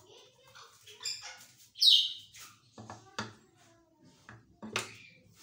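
Plastic handling of an electric food chopper: a short scrape about two seconds in, then a few sharp plastic clicks and knocks as the lid is fitted onto the bowl. The motor is not running. Some faint short chirps come early on.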